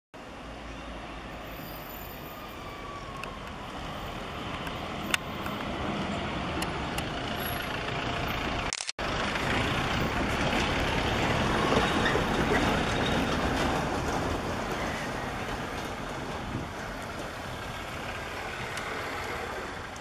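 Steady road-traffic noise, a continuous rumbling wash that swells to its loudest around the middle and then eases off. There is a short gap of silence just before the halfway point.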